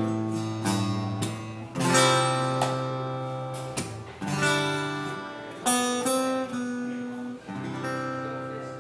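Acoustic guitar strumming the closing chords of a song, several sharp strums, then the last chord left ringing and dying away near the end.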